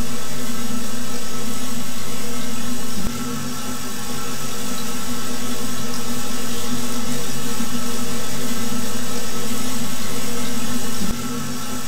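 A steady droning hum over a rushing noise, holding several low tones, that dips suddenly about three seconds in and again near the end, then swells back up.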